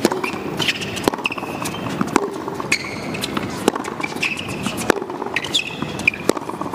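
Tennis rally on a hard court: a serve, then sharp racket-on-ball strikes about every second, with short high shoe squeaks on the court surface between them.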